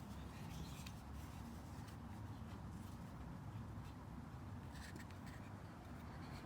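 Faint steady low room rumble, with a few soft clicks about five seconds in.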